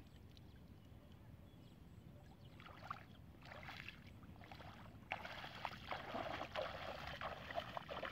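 Bare feet wading and splashing through shallow water in flooded grass, in uneven steps that begin about three seconds in and grow louder about five seconds in.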